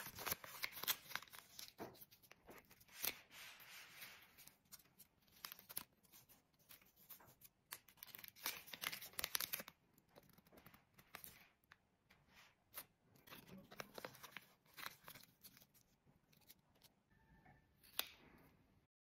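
Paper and a folded banknote being handled close up: faint, scattered rustles, crinkles and folding sounds in short irregular bursts, busiest near the start and again about eight to nine seconds in.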